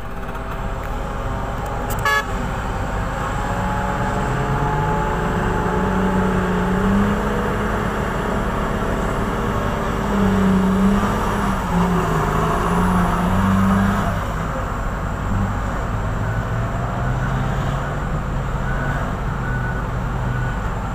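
Heavy diesel engines of a Hitachi EX2600 mining excavator and a haul truck running, their pitch rising and falling as they rev under load. A brief sharp sound comes about two seconds in.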